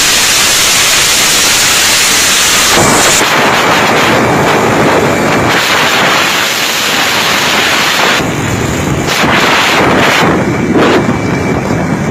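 Loud, rushing wind buffeting the microphone of a phone carried along a highway at speed, covering all other sound; the noise changes character about three seconds in and dips and surges unevenly from about eight seconds on.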